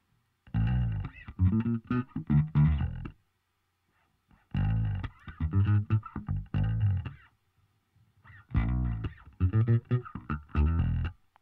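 Bass guitar track playing three short phrases of plucked notes, with brief silences between them. It runs through Surfer EQ2's pitch-tracking EQ band, whose boost follows the pitch of each note.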